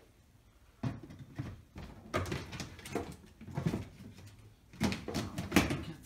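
Irregular knocks, clunks and rustling of objects being handled and shifted, as in rummaging through parts. It starts about a second in, with the loudest knocks near the end.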